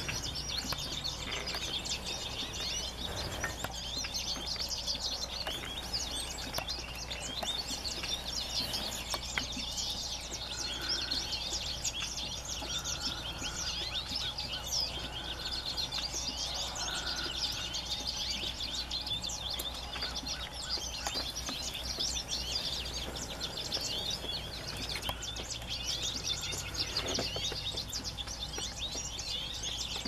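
A flock of common redpolls and American goldfinches calling together, many overlapping high twittering chirps without a break. Through the middle a lower short note repeats every second or two.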